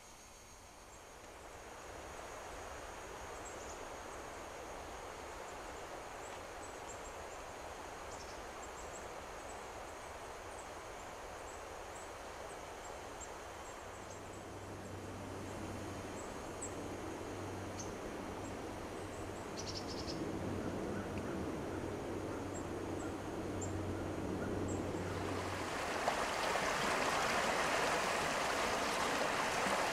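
Flowing river water carrying ice floes: a steady rushing that grows gradually louder and turns into a fuller, closer rush in the last few seconds. Faint high chirps come and go over it in the first part.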